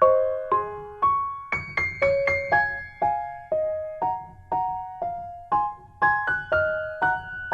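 Soft background piano music: a slow melody of single notes, each ringing out and fading, a couple of notes a second.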